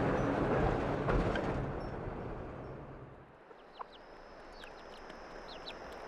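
A bus's engine and the crunch of its tyres on a dirt road fade away as it drives off. This leaves a quiet outdoor background of small birds chirping in short, falling notes over a steady, high-pitched whine.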